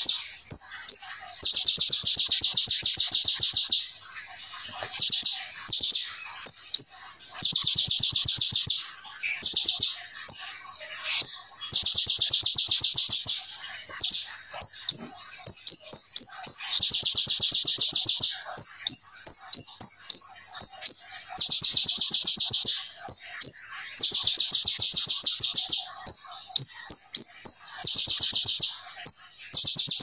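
Caged kolibri ninja (Van Hasselt's sunbird) singing hard: fast, dense, high-pitched trills of one to two seconds, repeated every few seconds, with quick sharp chirps between them. The trills are learned ciblek (bar-winged prinia) song.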